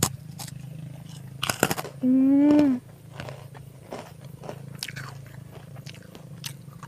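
Crisp crackers (kerupuk) being bitten and chewed close to the microphone: a sharp crunching bite about a second and a half in, then a steady run of small crunches. A short hummed "mmm" of enjoyment about two seconds in is the loudest sound.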